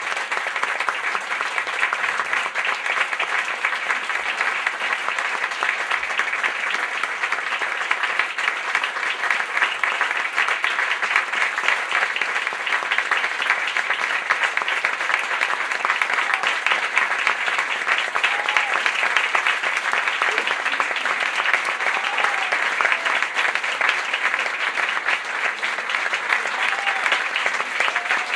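Audience applauding: many people clapping at once in a dense, even wash of claps, with a few faint calls in the second half.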